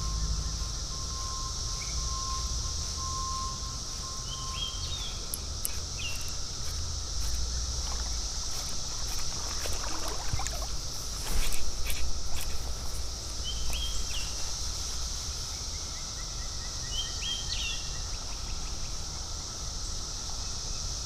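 Creekside outdoor ambience: a steady high insect drone over a low steady rumble, with a few short bird chirps scattered through. There are a few clicks and a brief louder rustle about halfway through.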